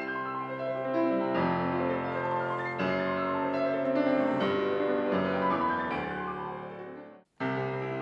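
Yamaha concert grand piano playing a classical passage of changing chords and notes. Just after seven seconds the sound cuts off abruptly, and after a short gap a different Yamaha grand piano starts playing.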